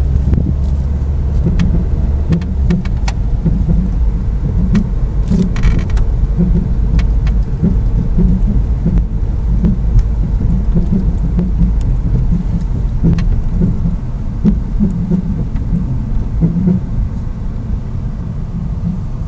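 Car driving with a loud low road rumble and an annoying rubbing noise that pulses in a quick repeating rhythm; its cause is unknown. A few sharp clicks sound over it.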